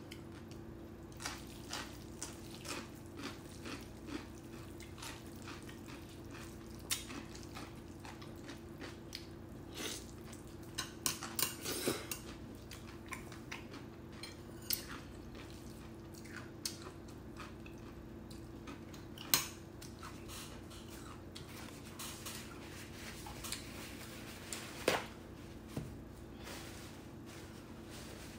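Stainless-steel chopsticks clicking and tapping against ceramic bowls and dishes now and then during a meal, a few sharper clinks among them, over a steady low hum.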